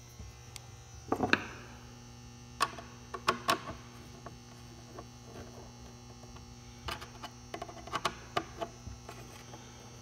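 Scattered light clicks and taps as a loosened door striker plate is shifted into position by hand on the jamb, over a steady electrical hum.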